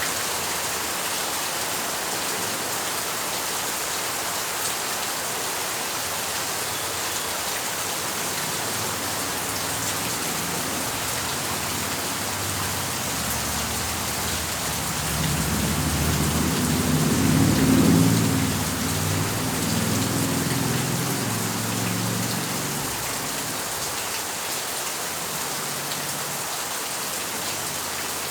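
Steady rain falling, a dense even hiss. Past the middle, a low rumble swells for several seconds and then fades away.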